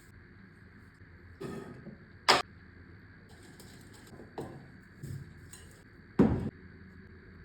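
Kitchenware being handled during cooking: about five separate knocks and clinks. The loudest are a sharp one about two seconds in and a heavier one about six seconds in.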